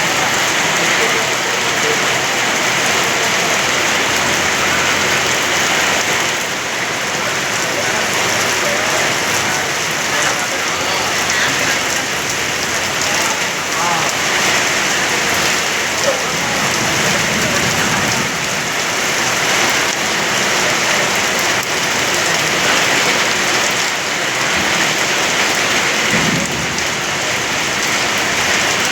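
Rain pouring down and drumming on surfaces: a loud, even hiss that keeps on without let-up.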